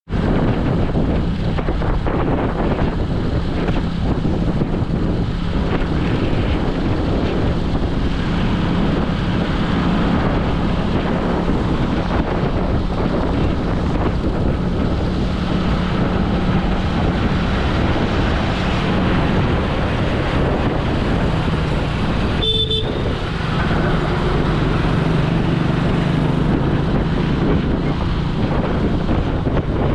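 Vehicle driving along a road: a steady engine drone under continuous road and traffic noise, with a brief beep about twenty-two seconds in.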